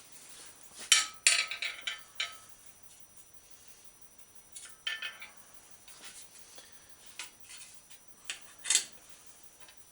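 Scattered metal clinks and clanks as a bicycle fender and its stays are handled and bolted onto the frame: a couple of sharp knocks about a second in, a few lighter ones around the middle, and a loud clank near the end.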